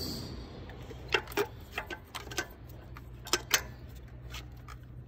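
Sharp, irregular plastic clicks and taps as a new ignition coil is pressed into its spark-plug well and handled on the engine's valve cover, starting about a second in.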